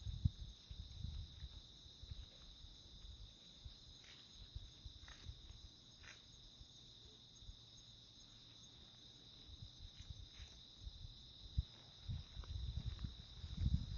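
A steady, high-pitched chorus of insects, with the walker's footsteps and clothing rustle on a clip-on mic, which get louder near the start and again in the last two seconds.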